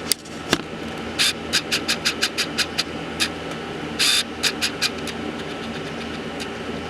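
Metal parts clinking and knocking as the turbocharger is pulled off the manifold, in an irregular series of sharp clicks with a short scraping rush about four seconds in, over a steady low hum.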